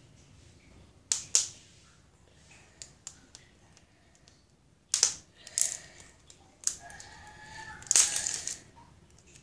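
Small plastic surprise egg and its contents being handled and pulled apart: a scatter of short plastic clicks and crackles, the loudest cluster near the end.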